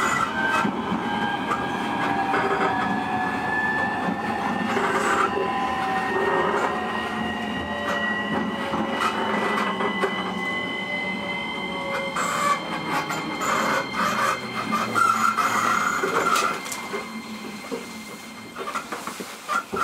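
E231-series electric train heard from inside the car, running on rails with its inverter motor whine sliding in pitch over the rumble of the wheels. Sharp clacks from the wheels over track joints come in the second half, and the running noise drops off over the last few seconds as the train slows.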